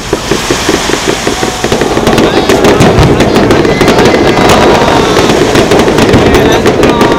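Aerial fireworks going off in a rapid, dense barrage of bangs and crackling, which grows louder about two seconds in.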